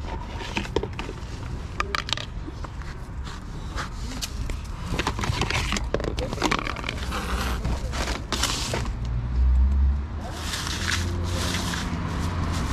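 Plastic bags rustling and a plastic plate scraping and knocking on brick paving, a string of irregular clicks and crackles, over a low rumble.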